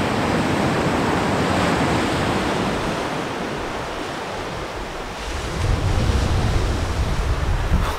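Surf breaking on a sandy beach, a steady wash of waves. Wind buffets the microphone with a low rumble from about five and a half seconds in.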